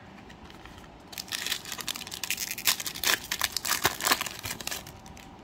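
A foil Panini Donruss Optic trading-card pack being torn open and handled, its wrapper crinkling and crackling for about four seconds, starting about a second in.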